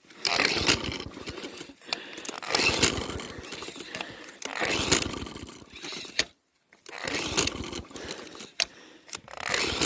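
Walk-behind lawnmower's recoil starter pulled over and over, about five yanks roughly two seconds apart, with the engine not catching.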